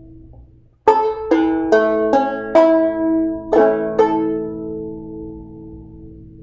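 10-inch H.C. Dobson antique banjo with a double spun-over metal pot and a solid maple bridge, played as a short run of plucked notes starting about a second in. The notes come about two or three a second, then the last notes are left ringing and slowly fade out.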